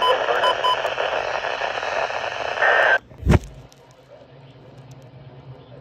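Radio static hiss with a few short, high beeps in the first second and a brief higher tone just before it cuts off abruptly about three seconds in. A single thump follows, then only a quiet low hum.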